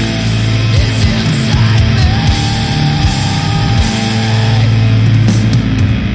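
Heavy post-hardcore band playing loudly: distorted guitars and bass hold low notes over drums and cymbals.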